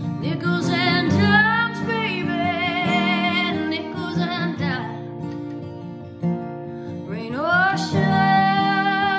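A woman singing long held notes with vibrato over her own acoustic guitar. About two-thirds of the way through, her voice swoops up into a long sustained note.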